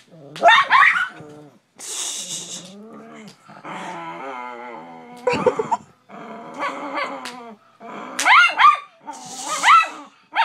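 Dog growling and barking, several sharp loud barks breaking out of a lower growl: a protective dog warning off someone who is hitting its owner.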